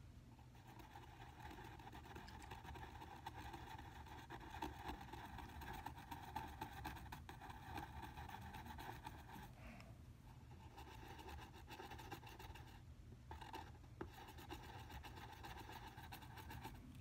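Faint scratching of a pencil on paper as it draws, with short pauses about ten and thirteen seconds in.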